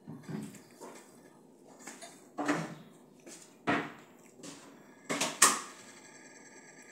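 A few short clatters of dishes and cutlery against a quiet room, the loudest about five and a half seconds in.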